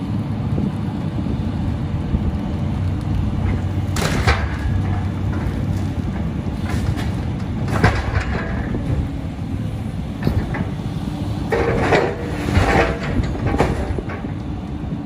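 Hydraulic demolition excavator's diesel engine running steadily as its grapple tears into the building, with crunches and crashes of breaking debris about four seconds in, about eight seconds in, and a cluster of crashing and scraping near the end.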